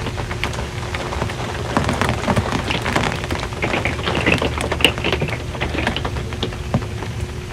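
Rain pattering on an RV's metal roof: a dense, irregular tapping of drops that grows heavier for a few seconds mid-way, over a steady low hum.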